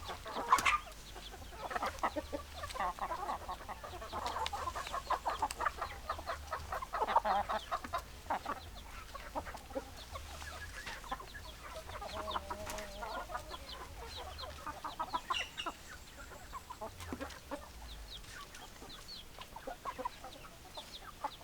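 A flock of hens clucking, many short clucks overlapping continuously, with a louder call about half a second in.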